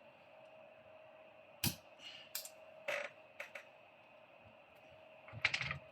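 Small sharp clicks and light taps of screws, a metal bracket and tools being handled while fitting a mini PC's heat sink: four scattered clicks, then a quick cluster near the end, over a faint steady hum.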